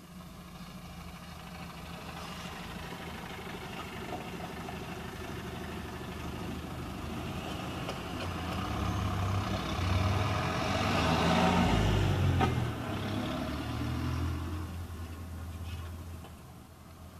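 Road traffic going past close by, heard from inside a car: engine noise builds over several seconds, is loudest about ten to twelve seconds in as a bus drives by, then fades.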